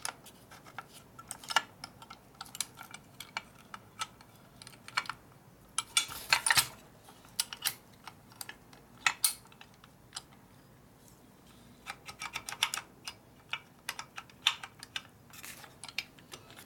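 Irregular metallic clicks and clinks of the shift forks and small steel parts in a Borg Warner T5 transmission's shifter cover being handled and worked into place by hand. A denser clatter comes about six seconds in, then a short lull, then another run of clicking.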